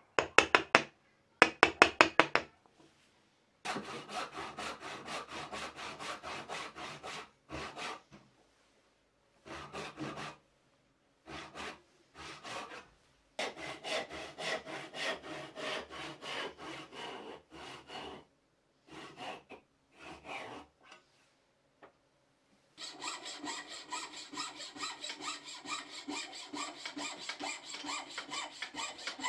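A wooden mallet taps a chisel into maple in two quick runs of blows. From about three and a half seconds in, a brass-backed backsaw cuts a maple block in runs of strokes with short pauses. From about 23 s in, a coping saw takes over with quicker, brighter strokes.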